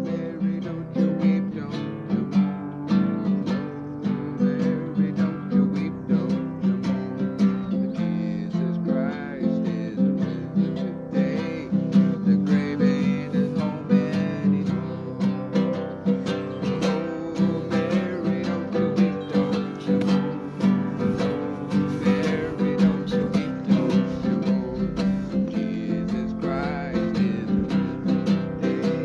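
Acoustic guitar strummed in a steady rhythm, an instrumental passage of chords with no singing over it.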